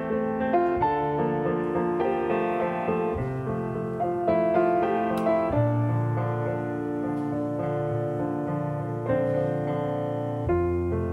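Background piano music: a slow, gentle melody of sustained notes.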